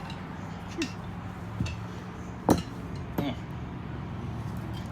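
A few sharp metal clinks from hand tools and drum brake parts being handled, the loudest about two and a half seconds in, over a steady low hum.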